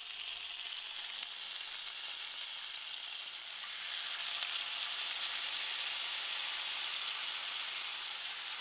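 Marinated chicken thighs sizzling as they are laid into a hot cast iron grill pan, a steady frying hiss that grows louder about four seconds in, with a single light click about a second in.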